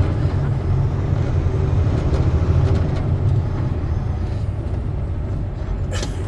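Steady low rumble of a big truck's engine and drivetrain heard from inside the cab, with a short click near the end.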